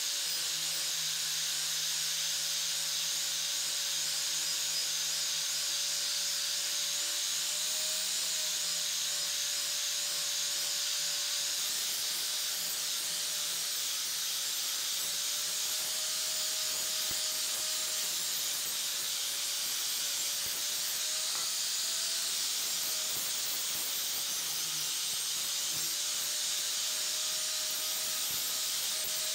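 Angle grinder running steadily with a red abrasive disc sanding a finned metal camera housing: a continuous hiss of abrasion over the motor's whine, which wavers slightly in pitch.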